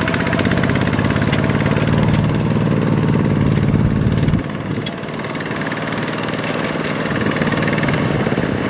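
Two-wheel walking tractor's single-cylinder diesel engine running steadily under load, hauling a loaded trailer through mud and water. It gets a little quieter about four and a half seconds in.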